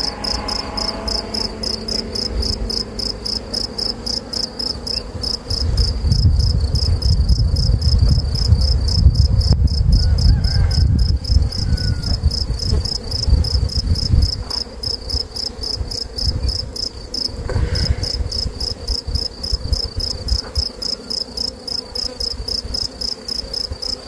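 A cricket chirping high and steadily in a fast, even rhythm of several chirps a second, over a faint hum of honeybees from the open hive. A low rumble rises between about six and fourteen seconds in.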